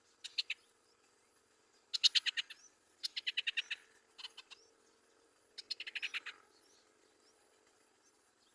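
Yellow-vented bulbul calling in five short bursts of rapid chirps, each lasting under a second, spread over the first six seconds.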